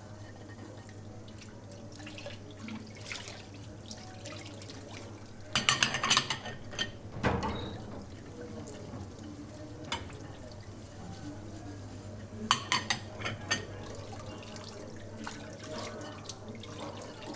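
Dishes being washed at a kitchen sink: water splashing, with clusters of sharp clinks of ceramic plates knocking together, loudest about six seconds in and again around twelve to thirteen seconds, over a steady low hum.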